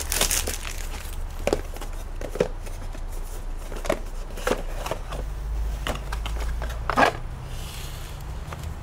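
Packaging being handled: a clear plastic bag crinkles at the start, then a cardboard box is opened with scattered light taps and knocks, and a short rustle near the end as the range extender is lifted out of its box.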